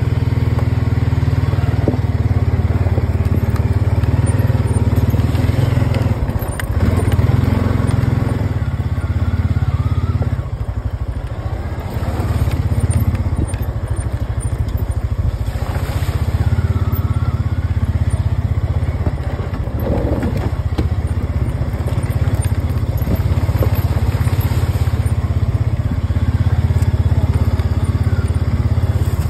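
ATV engine running steadily under way, a low drone heard from the rider's seat that eases off briefly a couple of times.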